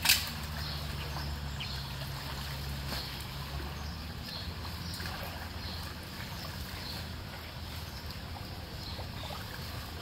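Shallow floodwater sloshing and trickling around a clogged curbside drain as wet leaves and debris are pulled out of it, with small scattered clicks of debris and splashes. One sharp knock right at the start, over a steady low rumble that fades after a few seconds.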